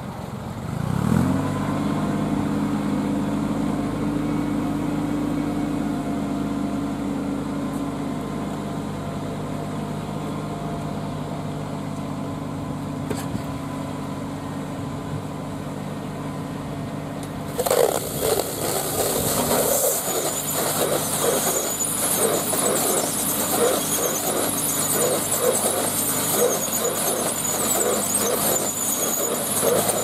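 Electric Siromer bale wrapper starting up about a second in, its motor and drive humming steadily as it turns the round hay bale. A little past halfway the stretch film begins crackling and squealing as it winds onto the bale, pulsing about once or twice a second.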